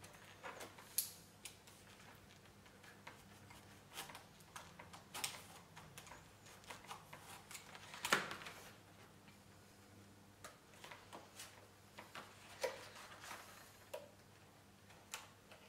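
Hobby knife cutting and scraping into a foam control surface to enlarge a hinge slot, with the foam parts handled: faint, irregular small clicks and scratches, the loudest about eight seconds in.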